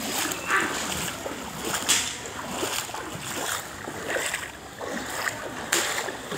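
Footsteps wading through shallow floodwater: a splash and slosh with each stride, several in a row, over a steady hiss.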